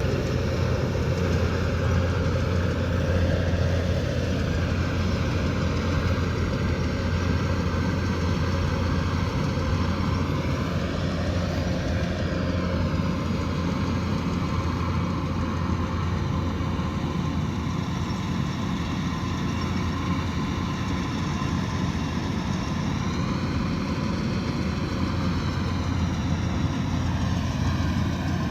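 Kubota DC108X combine harvester running, its diesel engine giving a steady drone.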